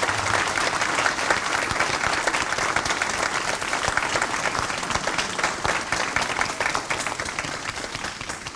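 Crowd of guests applauding, a dense steady clapping that thins out slightly near the end.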